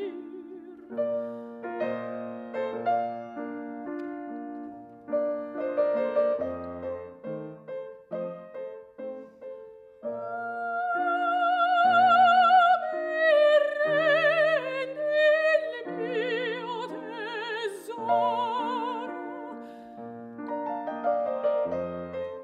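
Classical soprano singing with a wide vibrato over grand piano accompaniment. The piano plays alone for about the first ten seconds, then the soprano comes in with long held phrases, and the piano carries on alone near the end.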